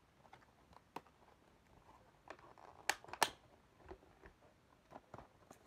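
Light handling noises from a plastic toy and its packaging: scattered faint clicks and taps, with two sharper clicks close together about three seconds in.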